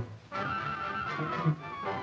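Instrumental film-score music: held notes resume after a brief drop a fraction of a second in, with a change of note about one and a half seconds in.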